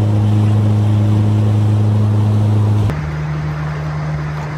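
Mercury outboard motor running at a steady cruising speed, a loud, even hum. About three seconds in it cuts abruptly to a slightly quieter, higher-pitched steady run.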